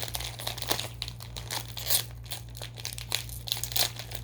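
Crinkly candy wrapper being pulled and torn at by hand: a quick, irregular run of crackles as someone struggles to get a Push Pop Gummy Roll package open.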